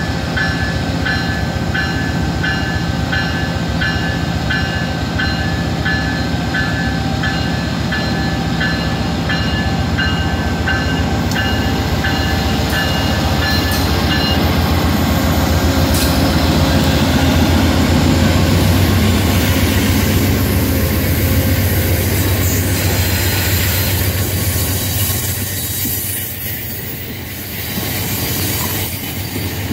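Two VIA Rail GE P42DC diesel locomotives pull a passenger train out and past, their engines running with a deep, steady drone that grows loudest partway through. For the first half a bell rings steadily, about one and a half strokes a second, then stops. After that the passenger cars roll by with wheel noise on the rails.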